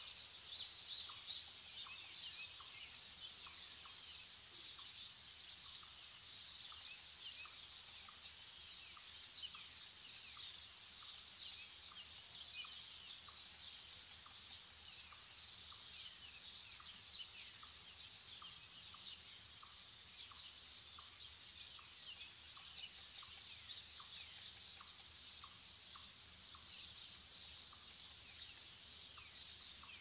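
A chorus of many small songbirds chirping and twittering in woodland. It is busiest in the first half and picks up again near the end. A faint pip repeats at an even pace underneath.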